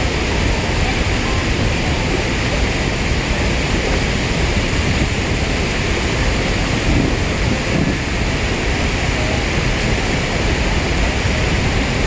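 Whitewater river rapids rushing: a loud, steady sound of churning water with no let-up.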